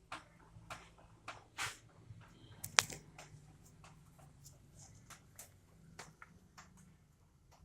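Rainwater dripping: single drops falling at an irregular pace, each a short tick of varying loudness, with one sharper, louder drop about three seconds in.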